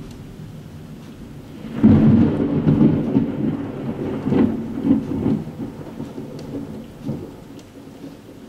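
Thunder: a sudden loud crack about two seconds in that rolls on with swells for a few seconds and then fades, over steady rain.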